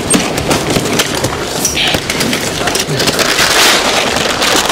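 Plastic wrapping of a compressed clothing bale rustling and crinkling as the bale is cut open and the wrap torn off. There are a few sharp clicks near the start, and the crinkling grows louder in the second half.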